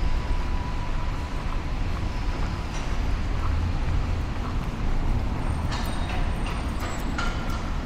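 City street ambience: a steady low rumble of traffic, with a few sharp clicks and brief high-pitched tones near the end.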